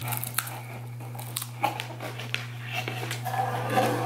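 A crisp hazelnut wafer cookie is bitten and chewed, with the wrapper crinkling now and then, over a steady low hum. There is a short vocal sound near the end.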